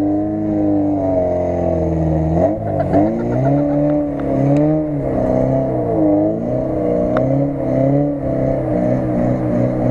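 Lada Niva's four-cylinder engine revving up and down under load as it pushes through deep mud ruts, its pitch rising and falling every second or so.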